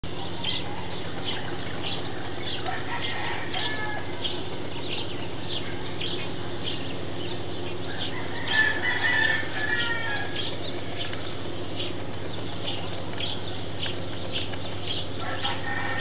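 Morning birdsong: many short high chirps repeating throughout, with a louder call about eight and a half seconds in, over a steady low hum.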